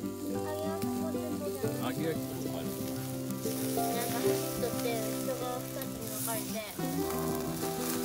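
Meat grilling on a wire grate over a wood fire, sizzling steadily. Background music of held chords plays along, changing about two seconds in and again near the end.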